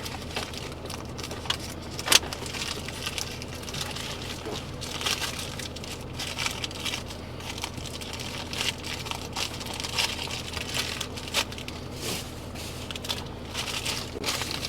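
Paper sandwich wrapper crinkling and rustling in irregular crackles, with one sharp click about two seconds in, over a steady low hum.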